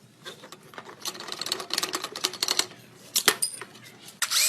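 Rapid metallic clicking and rattling of hand tools being worked on motorcycle parts, with a sharp click about three seconds in and a short, louder burst of noise near the end.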